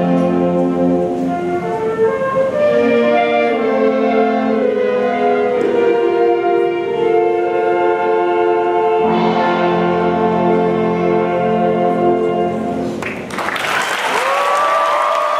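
School concert band of flutes, clarinets, saxophones and brass playing sustained chords, the piece ending near the end, followed at once by audience applause and a cheer.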